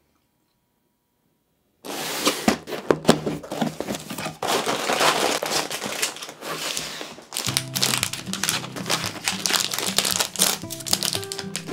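A plastic single-serving mixed-nut packet crinkling as it is pulled out of a cardboard box and handled, starting about two seconds in after a short silence. Background music comes in about halfway through.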